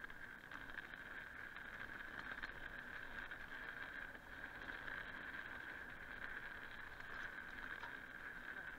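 Mountain bike rolling along a dirt singletrack: steady tyre and wind rush with a continuous high hum.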